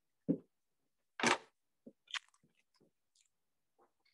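A few short knocks and crisp crunching sounds as a plate holding a fried rice-paper roll is handled and set down. The loudest, sharpest one comes a little over a second in.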